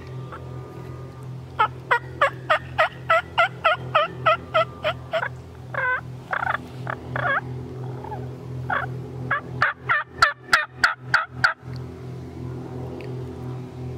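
Eastern wild turkey calling: a run of about a dozen evenly spaced notes, a few longer wavering notes, then near the end a quicker run of louder, sharper notes.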